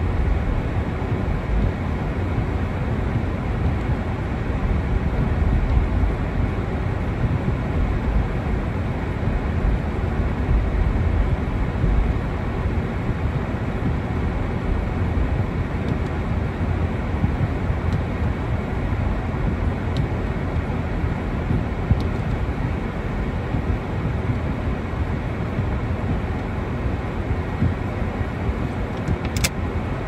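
Steady road noise inside a moving car: low engine and tyre rumble with a hiss of tyres on wet, slushy pavement. A single faint click comes near the end.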